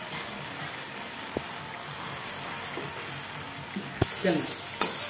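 Fresh spinach and spiced potato sizzling in hot oil in a wok, stirred with a metal spatula. There is a steady frying hiss and a sharp click about four seconds in.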